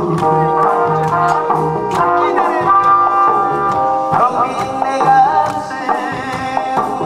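A man singing a song into a microphone over amplified backing music with a steady beat of about two strikes a second.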